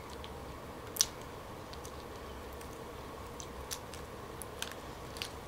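Fingers peeling a steamed tiger prawn: a few sparse, crisp clicks of the shell cracking and pulling apart, the sharpest about a second in, over a faint steady hum.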